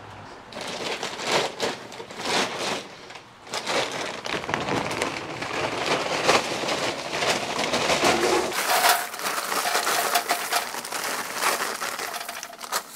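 Heavy paper charcoal bag rustling and crinkling as it is handled, while B&B compressed charcoal char-logs tumble out of it and clatter into a perforated metal charcoal basket, in a run of crackles and knocks.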